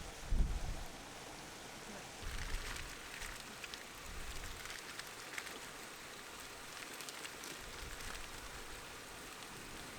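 Strong wind buffeting the microphone in low rumbling gusts, one at the start and another about two seconds in, over a steady hiss with scattered light ticks.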